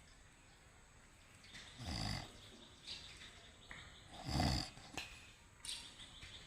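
A sleeping person snoring loudly: two deep, rasping snores about two and a half seconds apart, with quieter breathing between them. The title puts the heavy snoring down to exhaustion from work.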